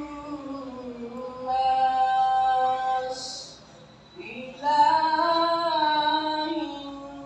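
A single voice reciting in a slow, melodic chant over loudspeakers: one long drawn-out phrase ending on a hissed consonant, a short breath pause, then a second long phrase that rises at its start and holds.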